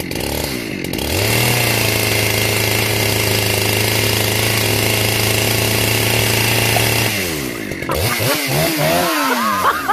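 A small engine revs up about a second in, holds a steady high speed for about six seconds, then drops back down. Its pitch then wavers up and down in a few quick revs near the end.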